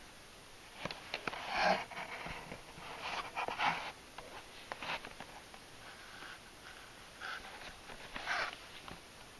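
Handling noise from a clear plastic blister package held in the hand: scattered sharp clicks and short crinkling rustles, in clusters about a second in, around three to four seconds in, and again near the end.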